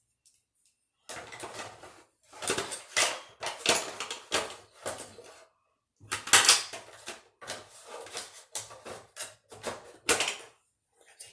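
Rummaging through a makeup box: plastic compacts and bottles clattering and knocking against each other in quick irregular runs.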